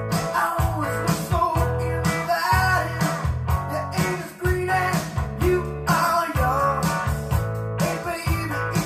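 A song with guitar and singing played through vintage RadioShack Optimus STS-1230 speakers fitted with upgraded crossovers, heard in the room. It sounds a little flat and a little shrill, which the owner puts down to the original RadioShack drivers.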